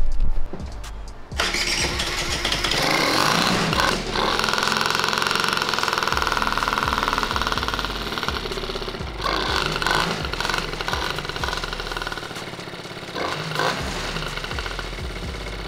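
Aprilia SR50's 50cc two-stroke scooter engine, converted from Ditech injection to a carburettor, catching about a second in and running. It holds a steady high rev for a few seconds, then revs up and down.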